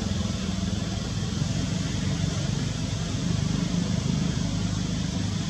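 A steady low engine rumble from a motor vehicle running nearby.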